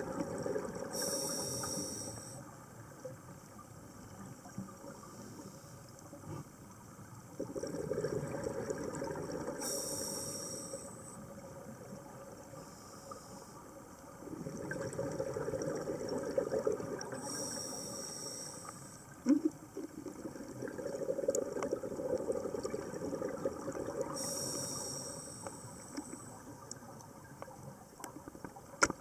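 A scuba diver breathes through a regulator underwater, about one breath every seven seconds. Each breath is a rush of exhaled bubbles followed by a high hiss from the regulator on the inhale. There is a sharp knock about two-thirds of the way through and another at the very end.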